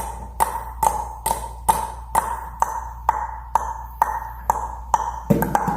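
A sharp click with a short ringing ping, repeated evenly about two and a half times a second, each ping on the same pitch; a busier mix of sounds comes in near the end.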